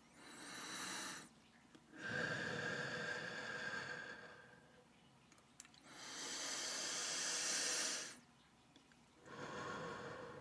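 Slow, deep breaths taken close to the microphone: four long breaths, each one to three seconds, with short pauses between them.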